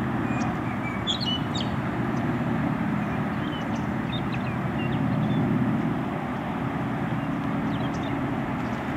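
Propeller-driven aircraft flying overhead: a steady engine drone that swells a little about halfway through.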